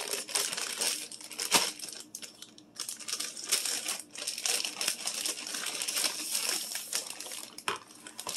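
Crinkling and rustling of a plastic bag of dried cranberries being handled, with sharp clicks and taps, and a plastic lid being pulled off a sour cream tub.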